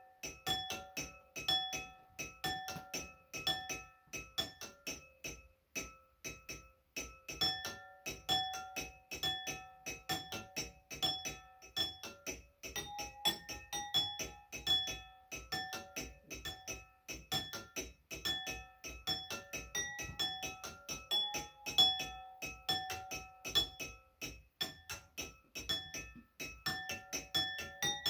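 A water glass xylophone of five wine glasses, each holding a different amount of water, tapped quickly with thin sticks and played like a drum in a steady rhythmic beat. Each tap gives a short ringing glass tone, and the pitch changes from glass to glass with the water level.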